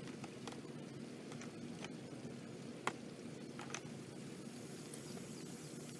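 A few light clicks and knocks of plastic raised-bed brackets and stacking stakes being handled and fitted, the clearest about halfway through, over a steady low hum.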